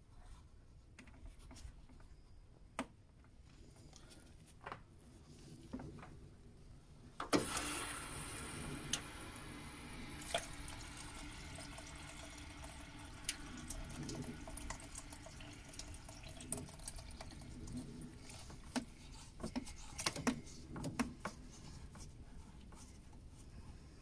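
Air and water spurting from the main heat exchanger's bleed point of a boiler, running down a hose into a bucket of water as the system is bled of air after refilling. A few quiet clicks, then about seven seconds in the flow starts with a sudden rush that settles into a steadier trickle, with scattered small knocks near the end.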